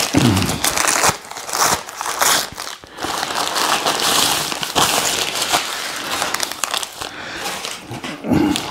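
Brown paper takeaway bag and paper food wrapper crinkling and rustling as a pita gyro is pulled out and handled, with irregular sharp crackles.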